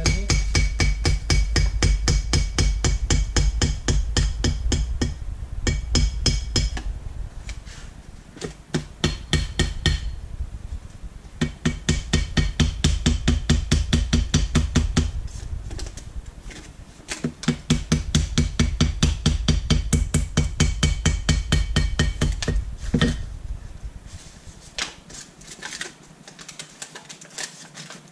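Small hammer tapping rapidly and evenly around the edge of a metal part through a sheet of paper, cutting out a paper gasket. The taps come in runs of several seconds with short pauses between.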